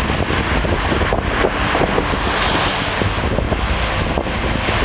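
Steady wind buffeting the microphone over the wash of sea surf breaking.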